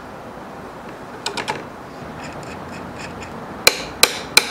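Small steel parts of an old Atlas lathe's cross-slide handwheel and feed screw clicking and clinking as they are handled and taken apart by hand: a few light clicks about a second in, then three sharp, ringing metallic clicks in quick succession near the end.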